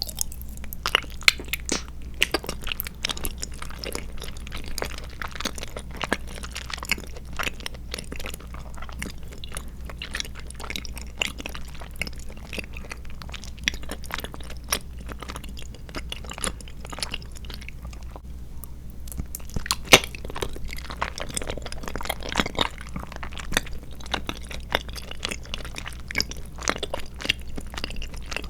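A person chewing tapioca pearls and milk jelly close to the microphone: a dense, irregular run of small wet clicks and squishes, with a steady low hum underneath.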